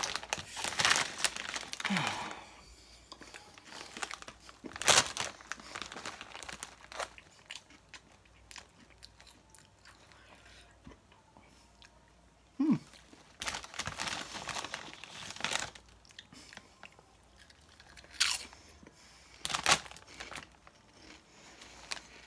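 Lay's Nashville Hot Chicken potato chips crunching as they are bitten and chewed, with separate loud crunches every few seconds. The chip bag rustles at the start.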